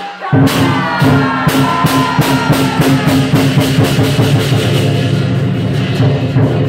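Lion dance percussion: a drum beaten steadily with clashing cymbals and a ringing gong, loud and continuous, cutting in after a brief gap at the very start.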